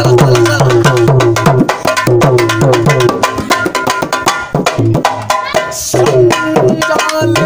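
Dholak played in a fast, even folk rhythm, its bass head sounding deep strokes that bend in pitch, with a man's voice singing over it.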